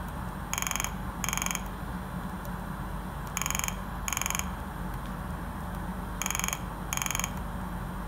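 Piezo buzzer driven by a CD4060 oscillator circuit, sounding an old-telephone-style ring: pairs of short, rapidly chopped buzzing bursts, three pairs about every three seconds.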